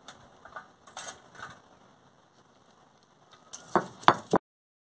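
Stone roller crushing ginger and garlic on a flat stone grinding slab: a few light knocks, then near the end a short burst of loud crunching, scraping strokes that cut off abruptly.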